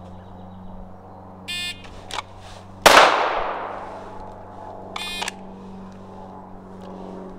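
A shot timer's buzzing start beep, then about a second later a single shot from a Glock 19 9mm pistol, the loudest sound, with a long fading echo. The timer beeps again about two seconds after the shot.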